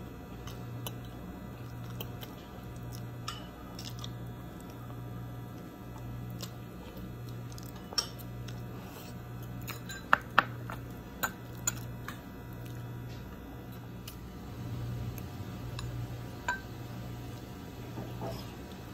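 Metal fork clinking against a bowl: a handful of sharp clinks, two close together about ten seconds in. Under them runs a low hum that pulses on and off about one and a half times a second.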